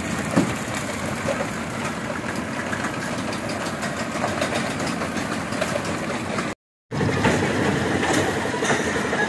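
Children's caterpillar roller coaster running along its steel track: a steady mechanical running noise, broken by a short gap in the sound about two-thirds of the way through.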